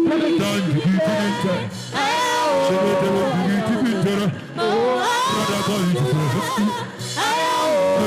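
Worship music: a singer holds long, wavering, ornamented phrases over instrumental accompaniment, pausing for breath about every two to three seconds.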